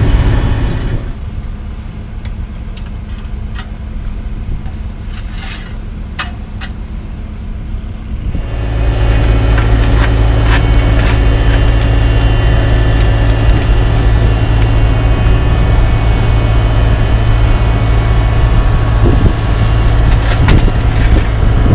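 Heavy diesel engines of a CAT asphalt paver and a dump truck running steadily. About eight seconds in, the sound jumps louder into a deep, steady engine drone from close beside the paver. A few light clicks come through on top.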